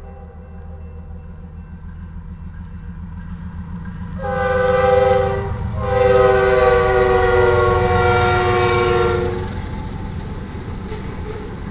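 Air horn of BNSF GE ES44AC locomotive 6013 sounding for a grade crossing: a shorter blast about four seconds in, then a long blast that stops about nine and a half seconds in. Under it runs the steady low rumble of the freight train, which keeps rolling through the crossing after the horn stops.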